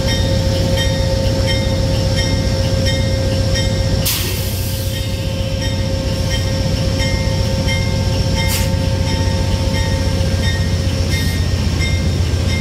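Train sound: a steady low rumble with several steady tones, some pulsing evenly, and a sharp burst of noise about four seconds in with a shorter one around eight and a half seconds.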